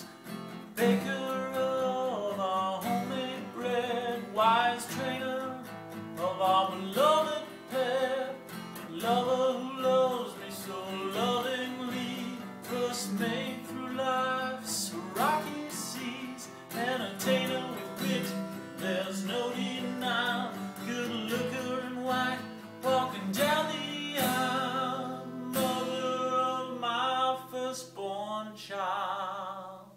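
A man singing a folk song while strumming an acoustic guitar. Near the end he holds one long, wavering note.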